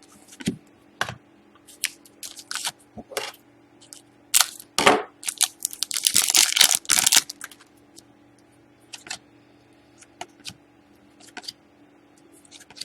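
Trading cards and their packaging being handled: scattered clicks and short rustles, with a longer tearing, crinkling rustle about six seconds in.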